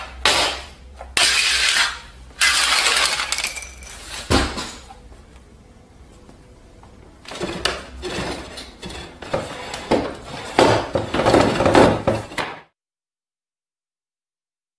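Household objects crashing and clattering, with glassy clinks, in two spells of noise with a sharp knock between them; it cuts off suddenly near the end.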